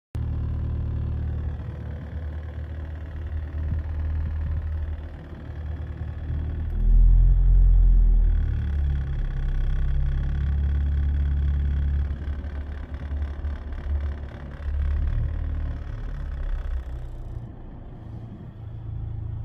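Suzuki Swift Sport engine running with a heavy, low droning vibration, the sign of a broken engine mount. About seven seconds in it surges louder and deeper for a second or so, then settles back to the steady drone.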